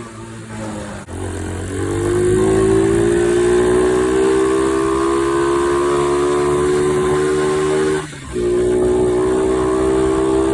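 Small 90cc pit-bike engine being ridden hard, running at high revs with its pitch slowly rising. The sound drops off briefly at the start and again about eight seconds in, then picks up again.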